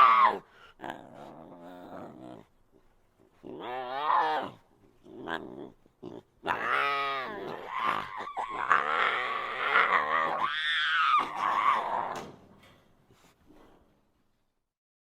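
Designed creature sound effects for an Acrotholus dinosaur: a series of animal-like growls and pitched calls that rise and fall. The longest call runs about six seconds in the middle and then fades away.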